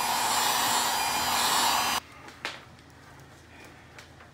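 Electric hot-air blower running steadily, preheating a 30.5cc gas RC car engine before its first start. It is switched off abruptly about two seconds in, followed by a light click.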